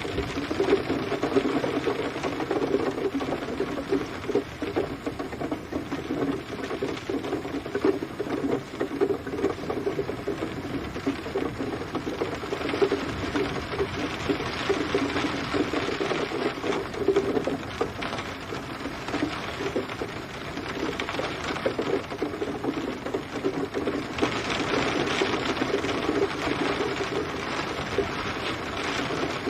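Steady rain falling, a dense crackle of many small drops, growing a little brighter and heavier about three-quarters of the way through.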